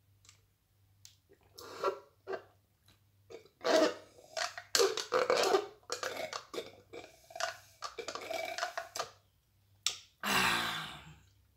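Drink being sipped through a straw in a series of slurps and gulps, then one long, loud burp about ten seconds in.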